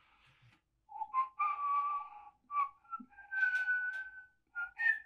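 A person whistling a short tune: a few held notes stepping upward in pitch.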